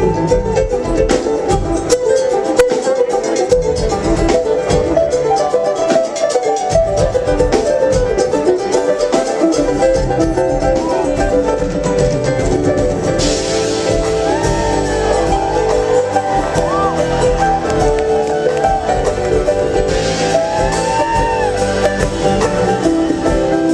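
Live acoustic bluegrass-style instrumental break, with banjo and mandolin picking quick runs of notes over a steady accompaniment.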